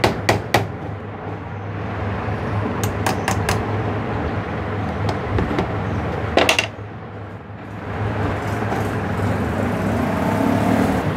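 A thin metal tool tapping the edge of a sewing machine's steel needle plate to shift it sideways, so that the needle comes down centred in its hole. The taps come as sharp clicks in small groups at the start and about three seconds in, followed by a louder knock about six and a half seconds in, all over a steady low hum.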